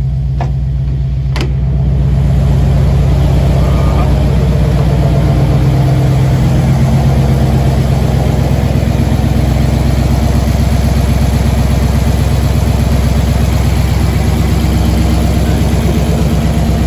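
1954 Ford V8 engine running steadily, slightly louder about two seconds in. The engine has suffered damage, and its noises are taken as a bad sign.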